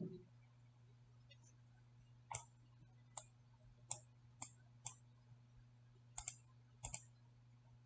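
Computer mouse clicking: about nine sharp single clicks at uneven intervals, a few in quick pairs, over a faint steady electrical hum.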